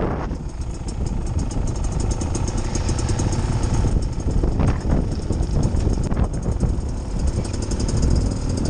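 Dirt bike engines running at low revs as the bikes crawl along a narrow trail, the nearest the rider's own Beta Xtrainer 300 two-stroke, with a fine even ticking over a steady low rumble.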